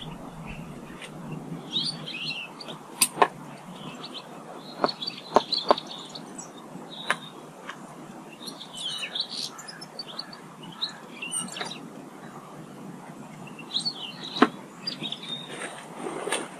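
Small garden birds chirping in short, high calls, with a handful of sharp clicks scattered between them; the loudest clicks come about three seconds in and near the end. A steady low background noise runs under it all.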